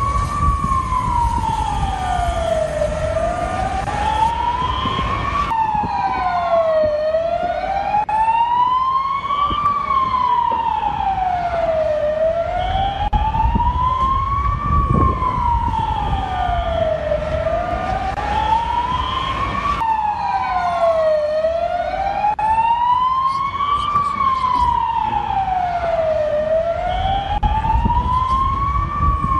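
Emergency siren in a slow wail, its pitch rising and falling once about every four seconds, over a steady low rumble.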